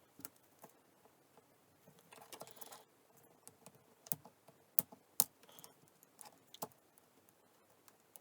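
Scattered small, sharp clicks and taps of tools and phone parts being handled during iPhone reassembly, with a short rustle about two seconds in.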